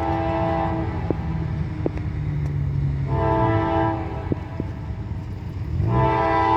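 Second-generation Nathan K5LA five-chime air horn on a GE AC4400CW locomotive, sounding in separate blasts: one cuts off about a second in, a short blast comes near the middle, and a long one begins near the end. Under the horn is the steady rumble of the locomotive's diesel engine.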